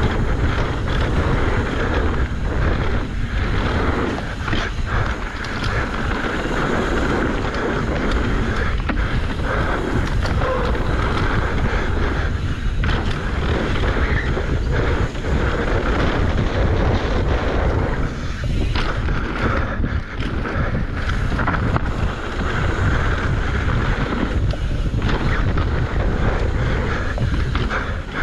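Mountain bike running fast down a dirt trail, with tyres rolling and the frame rattling over bumps. Wind rushes steadily over the microphone, and knocks come throughout.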